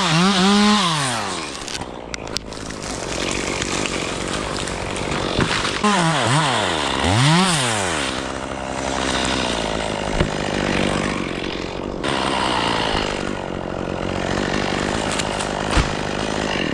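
Two-stroke chainsaw at full throttle, its pitch wavering under cutting load, then dropping off about a second in. Around six seconds in it is revved up and down twice, then settles to a steadier, lower running note, with a couple of sharp knocks.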